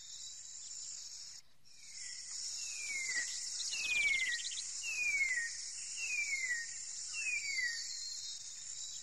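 Tropical rainforest ambience: a steady, high-pitched insect chorus that briefly drops out early on. Over it comes a series of about six descending whistled notes, roughly one a second, starting about two and a half seconds in.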